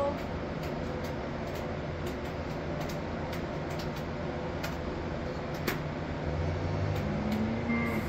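Steady low mechanical drone with a few faint clicks, and a short low pitched sound in the last two seconds.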